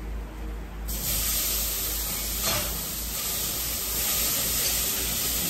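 A steady, loud hiss sets in about a second in and keeps going, with a brief louder swish about two and a half seconds in, from cooking at the stove.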